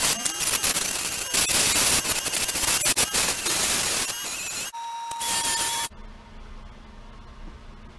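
Small benchtop wood lathe spinning a wooden handle blank while it is sanded by hand: a loud, scratchy hiss with many clicks. It stops after about four and a half seconds, a steady high whine follows for about a second, then only a quiet low hum.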